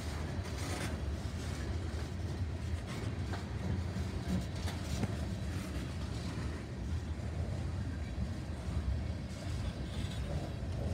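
Freight cars, tank cars and covered hoppers, rolling past at close range: a steady low rumble of steel wheels on the rail, with a few light clicks.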